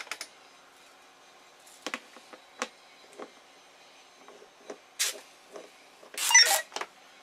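Duct tape being handled, with small clicks and rustles, then a length pulled off the roll in a short rasping rip near the end.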